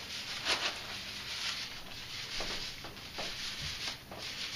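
Paint roller loaded with sealer rolling back and forth over a cinder block wall: a soft rubbing hiss that swells with each stroke, about once a second.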